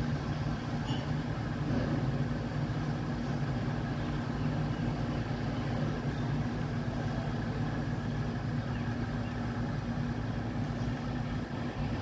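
MAN TGS 26.320 garbage truck's diesel engine idling, a steady low hum that holds an even level throughout.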